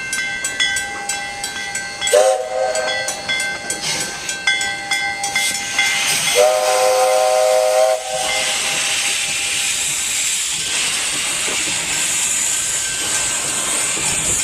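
Steam locomotive at a standstill or starting off, its bell ringing steadily, then two blasts on its chime steam whistle: a short one about two seconds in and a longer one of nearly two seconds. Afterwards steam hisses steadily.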